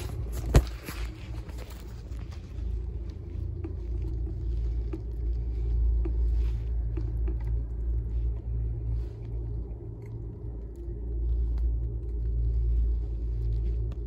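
Wind buffeting a phone's microphone on a moving chairlift: a low, uneven rumble that swells in the middle and again near the end. There is a single sharp click about half a second in.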